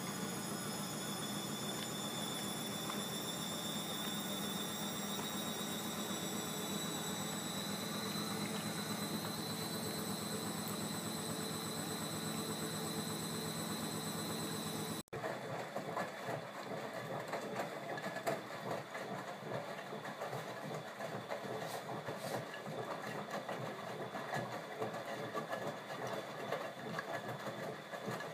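Bosch Maxx 40 WFC2445 washing machine running: a steady motor whine that rises slowly in pitch. About halfway through it breaks off abruptly and gives way to a rougher, more uneven churning sound.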